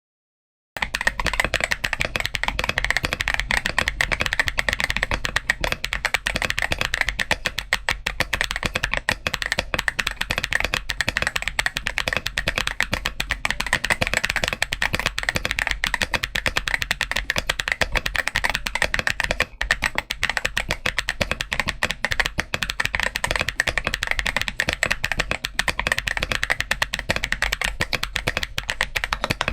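Continuous fast typing on a GMK67 mechanical keyboard with a PET sheet fitted between the PCB and the IXPE foam: a dense, unbroken run of keystroke clacks starting just under a second in.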